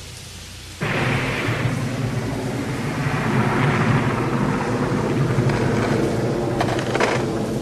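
Thunderstorm sound effect: rain hiss, then a loud roll of thunder breaking in suddenly about a second in and rolling on, with a few sharp cracks near the end.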